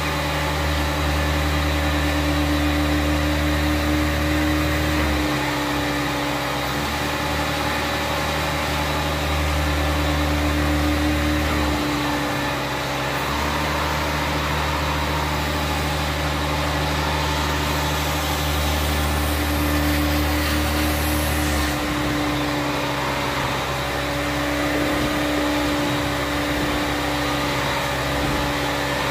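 Hot-water extraction carpet cleaner running steadily, its vacuum drawing air and water up through the wand as it is worked over an area rug. The drone holds a steady whine, while its low hum changes in steps every few seconds.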